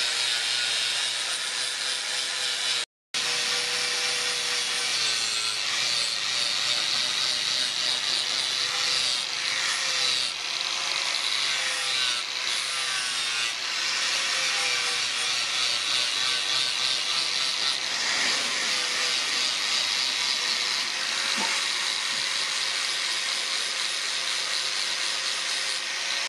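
Electric angle grinder with an abrasive disc grinding a steel knife blade: a steady motor whine under a hissing grind of disc on steel, wavering slightly as the disc is pressed and moved along the blade. The sound cuts out briefly about three seconds in.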